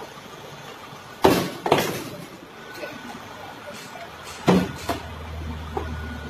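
Hard plastic knocks and clatters from a top-loading washing machine's top panel being handled and lifted off the cabinet: two sharp knocks about a second in, then two more about four and a half seconds in. A low steady hum comes in near the end.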